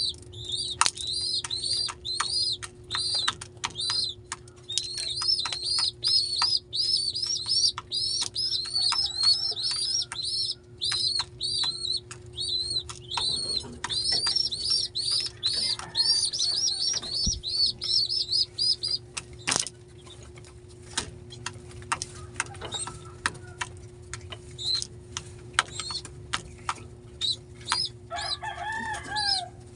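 Pigeon squabs in the nest peeping rapidly in a high squeaky pitch, the begging call of young pigeons. The peeps come several a second for most of the first twenty seconds, then in sparser bursts. Sharp clicks are scattered throughout, and wings flutter near the end as an adult pigeon lands on the nest.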